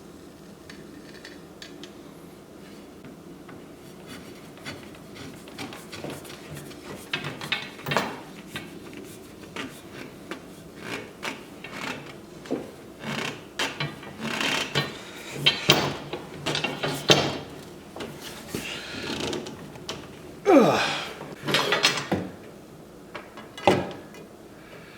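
Steel pipe and pipe fittings being handled and screwed together: irregular clanks, knocks and scraping of metal. They start a few seconds in and are loudest in the second half.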